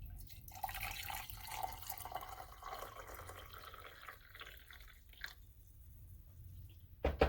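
Water being poured into the bottom chamber of a stovetop moka pot, a splashing trickle for about three seconds that then fades to a few small clicks, with a sharp knock near the end.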